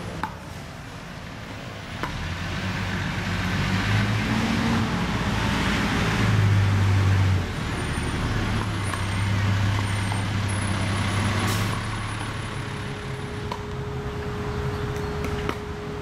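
Road traffic passing, led by a heavy vehicle's low engine rumble that builds, peaks about halfway through and fades.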